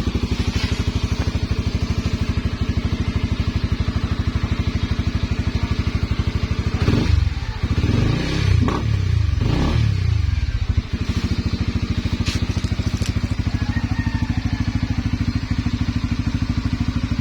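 Honda Sonic 150 single-cylinder four-stroke engine idling through an MVRI silent aftermarket exhaust pipe. About seven seconds in, the throttle is blipped a few times, so the exhaust note rises and falls, and then it settles back to a steady idle.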